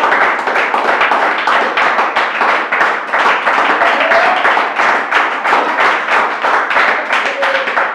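Audience clapping steadily, many hands at once, with a few voices mixed in; the clapping dies away near the end.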